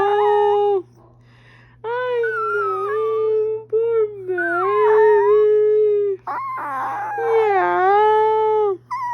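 A chihuahua howling in a series of long, wavering howls, about four of them with short breaks between.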